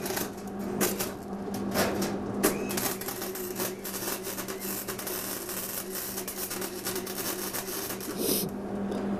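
Hobart wire-feed welder arc crackling and sputtering irregularly while welding steel, stopping about eight seconds in. The arc is jumpy because the metal was not ground clean before welding.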